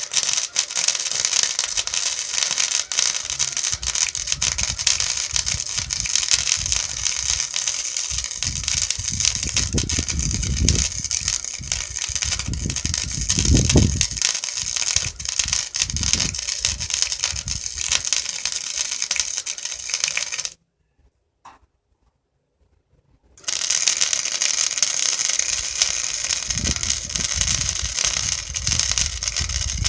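Electric arc welding: the arc's steady hissing crackle as a bead is laid on steel go-kart pedals. It runs for about twenty seconds, stops abruptly, and after a few seconds of quiet a second bead starts and crackles on.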